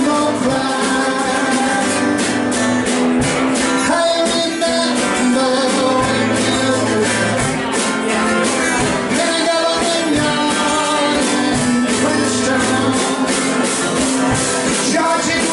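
Live band music: an acoustic guitar strummed over a drum kit keeping a steady beat.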